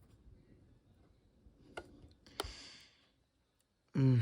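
Two faint sharp plastic clicks, about two thirds of a second apart, as the iMac's memory release levers are pushed in, the second followed by a short hiss.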